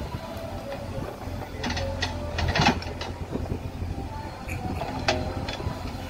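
JCB backhoe loader's diesel engine running steadily, with metallic clanks and rattles from the backhoe bucket and its linkage as it works the soil, a cluster of them a couple of seconds in and a sharp one near the end.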